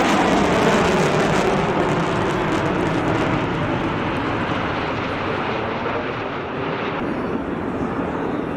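A fixed-wing aircraft passing low overhead: a loud engine roar that swells at the start and falls in pitch as it goes by, then carries on more steadily.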